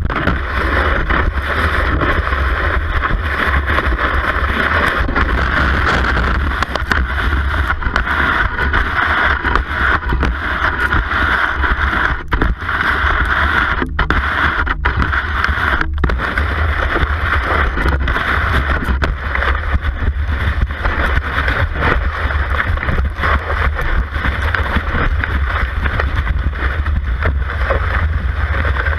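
Cross-country ski gliding and scraping over groomed snow, heard from a camera fixed to the ski: a steady loud rushing hiss with a low rumble and frequent short knocks as the skis strike and push off.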